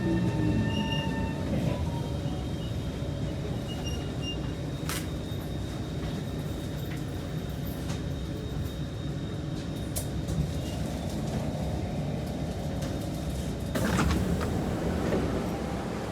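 Kawasaki C151 metro train running on the rails. A falling motor whine dies away in the first second, leaving steady wheel-and-rail rumble with a few sharp clicks and a louder clatter about fourteen seconds in.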